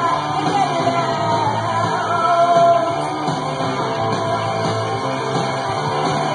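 Punk rock played from a 7-inch vinyl record on a turntable: a guitar band with a singer, steady and loud throughout.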